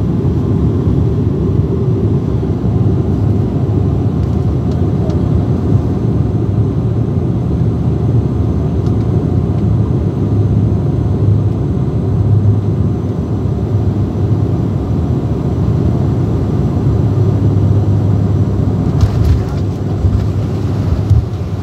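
Steady low rumble of an airliner's engines and airflow heard inside the passenger cabin as the plane lands.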